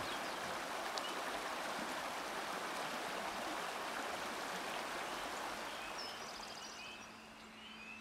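Steady rush of a small, shallow rocky creek flowing over stones. The water noise eases off near the end, and birds chirp repeatedly over it.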